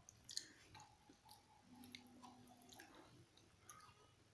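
Faint, sparse chewing and wet mouth clicks from a person eating tteokbokki.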